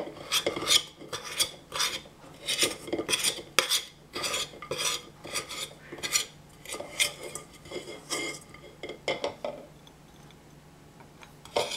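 Metal spoon scraping and stirring dry, crumbly brownie-mix dough around a stainless steel saucepan: a quick run of scrapes and clinks against the pan for about eight seconds, then a few more strokes and it goes quiet.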